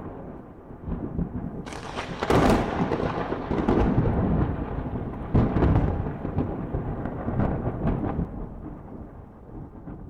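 Thunder rumbling, with sharp cracks about two seconds in and again about five seconds in, then dying away near the end.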